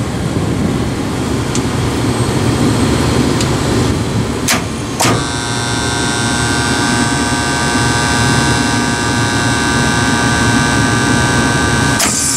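Motor-starter contactors in a rotary screw compressor's wye-delta starter pulling in with two sharp clacks about half a second apart. Then one contactor buzzes a little, steadily, over a steady low rumble. Another click comes near the end. The controls are energised on a dry run with the motor not actually running.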